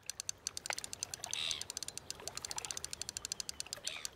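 Fishing reel's ratchet clicking rapidly and steadily, about eight to ten clicks a second, with a couple of brief higher sounds over it.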